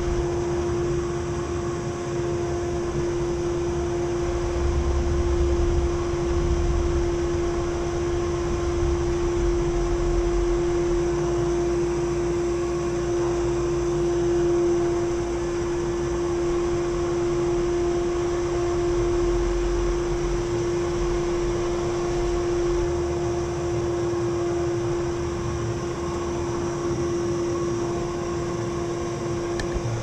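Samsung POWERbot robot vacuum running, its suction motor giving a steady hum with a constant mid-pitched whine over a hiss of moving air. A low rumble rises and falls underneath.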